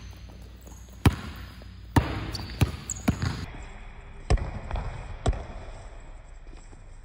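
A basketball dribbled on a hard indoor court floor: about five sharp bounces at an uneven pace, with a few brief high squeaks a couple of seconds in.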